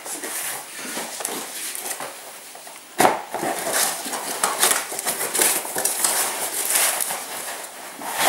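A carbon-fibre water-fed pole being unwrapped from its packaging: rustling with hard clattering and clicking, and a sharp knock about three seconds in.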